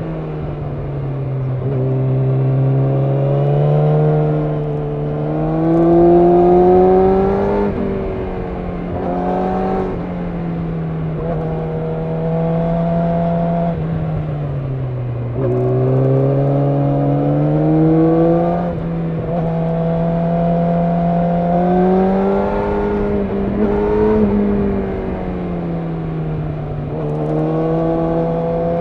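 Yamaha YZF-R6's inline-four engine running under way, heard from the bike itself. The engine note climbs slowly and falls back several times as the revs rise and drop.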